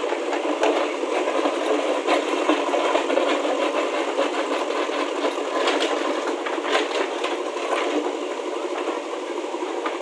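JCB 3DX backhoe loader's diesel engine running steadily under load as the rear bucket digs and scrapes through stony rubble, with frequent clatter and knocks of rock against steel.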